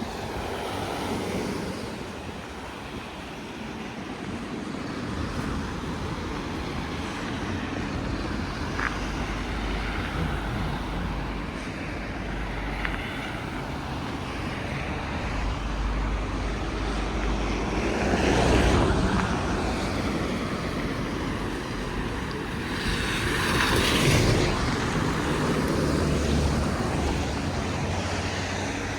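Road traffic on a snowy city street, with vehicles passing by. The sound swells twice as vehicles pass close, about two-thirds of the way through and again near the end.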